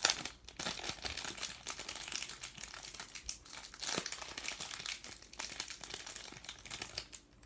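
Packaging being handled and unwrapped, crinkling and crackling irregularly, thinning out near the end.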